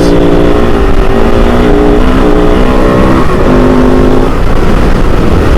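Kove 450 Rally's single-cylinder engine running while ridden, with wind rumble on the microphone. The engine note holds steady, then shifts in pitch a couple of times as the revs change.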